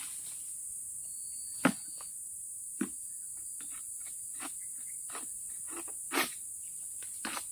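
Insects chirring steadily at a high pitch. A few short sharp knocks and snaps cut through, the loudest about a second and a half in and again about six seconds in.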